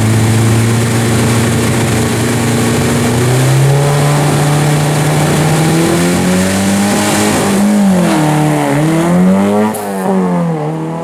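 Opel Kadett GT/E rally car's four-cylinder engine held at steady revs on the start line, then launching and pulling away. Near the end the revs climb and drop in quick swings through the gear changes.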